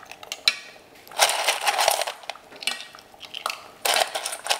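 Clam shells clattering and clinking against a stainless steel bowl as they are tipped into a cooking pot, in a few short bursts.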